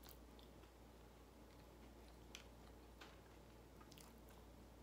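Near silence: a person quietly chewing a mouthful of food, with a few faint clicks, the first as the bite is taken and others about two and three seconds in.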